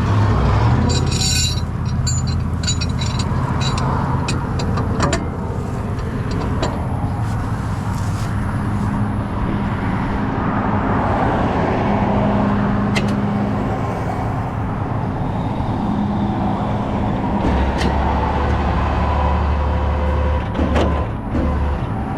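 A vehicle engine running steadily with road traffic, a few sharp clicks and knocks scattered through, and a louder low rumble near the end.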